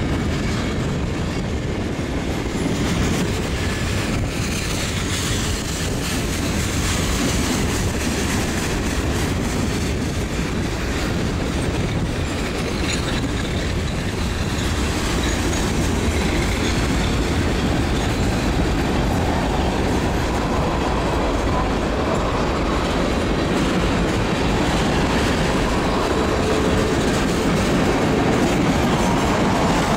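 Freight train cars rolling steadily over a railway bridge: a continuous low rumble with the clickety-clack of wheels over rail joints.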